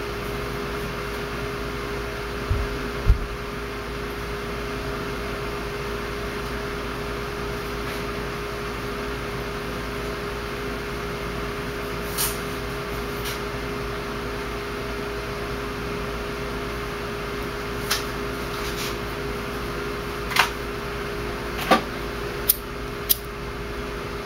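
A steady mechanical hum with a constant tone. Two low knocks come about three seconds in, and a handful of sharp clicks are scattered through the second half, most of them in the last few seconds.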